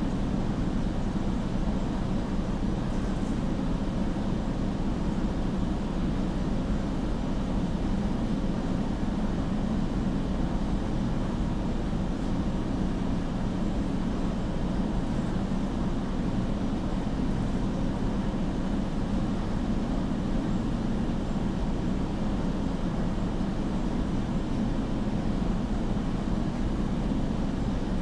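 Steady low rumble of background noise, even in level with no breaks or distinct calls.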